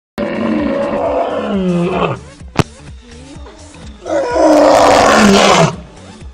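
Old lion roaring twice. The first roar falls in pitch, then come quieter low grunts, then a second, louder roar. A sharp click sounds between the two roars.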